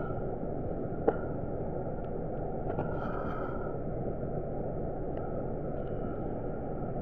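Steady low rumble inside a city bus standing at a traffic light, with one sharp click about a second in.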